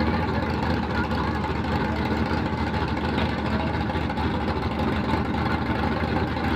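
Two old Chevrolet drag-racing trucks' engines idling together at the start line, a steady, even running sound with no revving.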